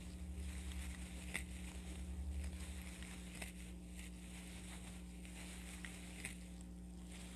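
Faint handling sounds of a crochet hook and acrylic yarn being worked stitch by stitch: soft rubbing and a few light ticks, over a steady low electrical hum. A low fluttering rumble runs through the first three seconds.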